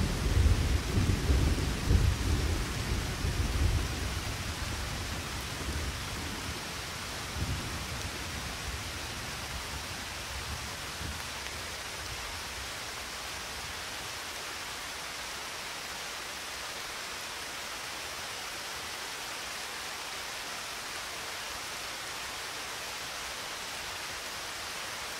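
Thunderstorm: a low thunder rumble that fades away over the first few seconds and a smaller rumble about seven seconds in, then a steady hiss of rain.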